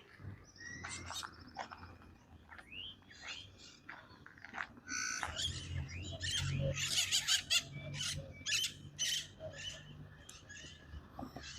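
Birds calling: many short chirps and sharp, sweeping calls, densest and loudest in the middle. A low steady hum comes in about halfway.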